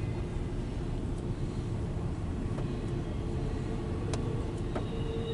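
CSX intermodal freight train rolling past, a steady low rumble heard from inside a car, with a couple of sharp clicks near the end.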